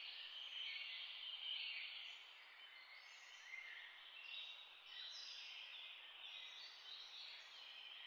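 Faint, uneven hiss of water heating in a stainless steel pot on the stove, tiny bubbles forming on the bottom before the boil.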